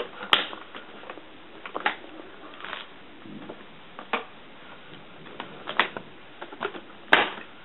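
The plastic screen bezel of an HP Envy dv6 laptop being pried off by hand, its clips popping loose in scattered sharp clicks and snaps, the loudest near the end.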